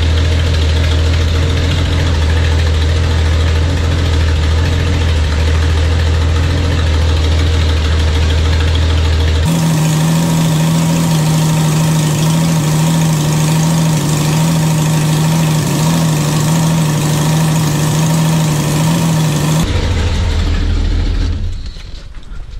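Datsun Z's L-series inline-six engine idling steadily. Its tone changes abruptly about a third of the way in and again near the end, and it falls away in the last second.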